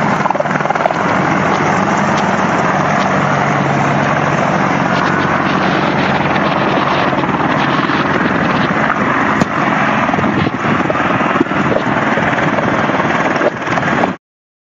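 Military helicopter flying low overhead: loud, steady rotor and engine noise that cuts off suddenly near the end.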